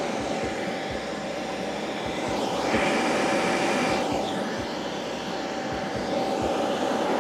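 VEVOR inflatable paint booth's 950 W electric air blower running freely on a test run: a steady whine over the rush of air, a little louder for about a second around three seconds in.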